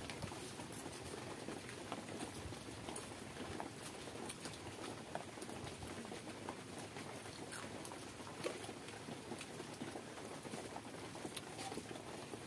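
Hand-eating sounds: fingers working mashed brinjal and onion on a steel plate, then chewing. Scattered soft clicks sit over a steady hiss.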